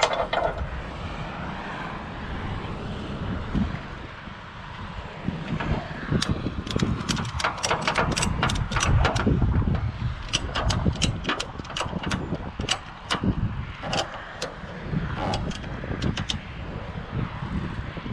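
Wheel strap on a car-hauler trailer deck being ratcheted tight: a run of sharp clicks, about two a second, starting about six seconds in and stopping near the end, over a steady low rumble.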